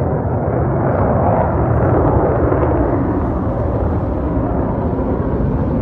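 Jet engine noise from Blue Angels display jets passing overhead, a steady rushing rumble that swells to its loudest about two seconds in, then eases slightly.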